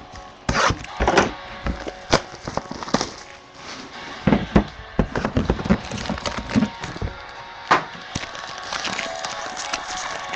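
Hands opening a cardboard trading-card box and handling what is inside: a run of separate clicks, taps and scrapes of cardboard and wrapping.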